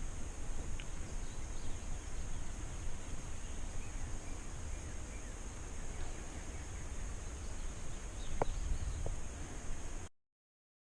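Outdoor field ambience: a steady high insect drone over a low wind rumble, with a few faint bird chirps and a sharp tick about eight seconds in. The sound cuts off abruptly near the end.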